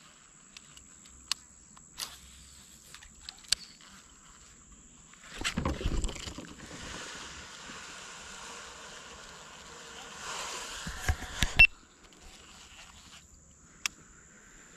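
Movement on a fishing kayak: for several seconds in the middle, rustling and water noise with a few sharp knocks, over a faint steady high insect buzz.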